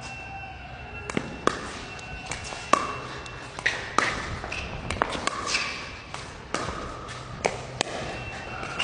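Pickleball dink rally: paddles tapping a plastic pickleball back and forth over the net, with the ball bouncing on the court, about a dozen sharp knocks at uneven spacing. Short sneaker squeaks on the court come between the hits.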